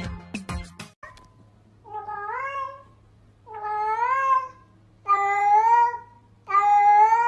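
A silver tabby cat meowing four times, each meow long and drawn out and rising in pitch at its start, spaced about a second and a half apart. This follows a second of quick clicking and knocking at the start.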